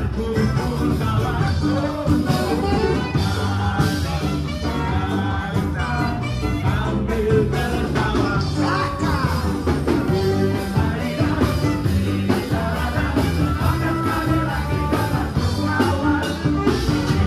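Upbeat band music with a steady beat and a singing voice.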